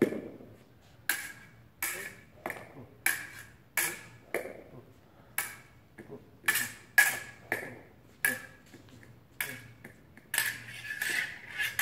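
Thin fencing blades clinking against each other in a quick, irregular series of about twenty contacts, each with a short metallic ring. A duller thump comes right at the start.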